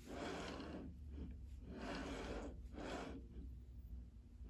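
The aluminium bed of a surface grinder attachment rolling back and forth along its rail on V-groove bearings, in about three strokes that stop about three seconds in. It is being checked for play after a bearing adjustment has removed a dead spot.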